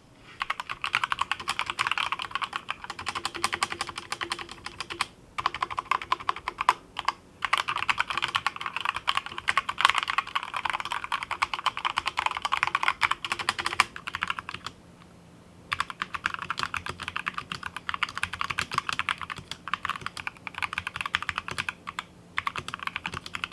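Sound test of a GMMK full-size mechanical keyboard fitted with lubed Akko Jelly Black linear switches: fast, continuous typing. There are a few brief pauses and a break of about a second around fifteen seconds in.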